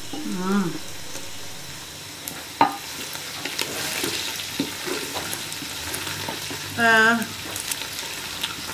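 Wooden spoon stirring meat frying for pilau in a metal pot, with a steady sizzle and occasional sharp knocks of the spoon against the pot.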